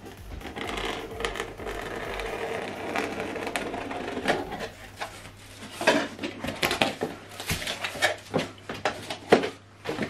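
Cardboard shipping box being opened: a blade scratches along the packing tape on the top seam for a few seconds, then a string of sharp cardboard knocks and scrapes as the flaps are pulled open.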